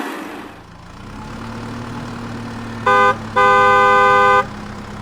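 Vehicle horn sound effect honking twice, a short toot then a longer one lasting about a second, over a low steady engine hum.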